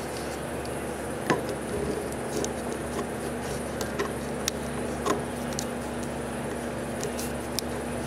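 Scattered light clicks and taps as metal pliers are worked in around a plastic zip tie and wiring harness, over a steady low hum.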